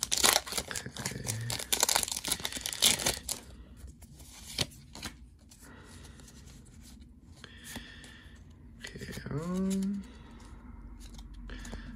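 A foil Pokémon booster pack wrapper being torn open and crinkled for about three seconds, followed by quieter handling of the card stack with scattered light clicks. A person's voice sounds briefly about nine seconds in.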